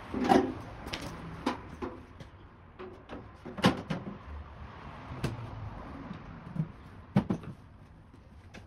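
Sheet-metal service cover of a Daikin outdoor air-conditioning unit being handled and fitted back on: a series of about five sharp metallic knocks and clicks, the loudest just after the start and at about four seconds.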